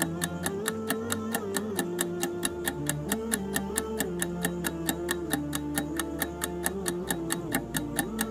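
Quiz answer countdown timer ticking fast and evenly, over a soft background tune.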